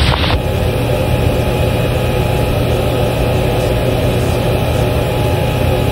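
Steady low droning hum with a set of constant tones, muffled like the radio audio around it.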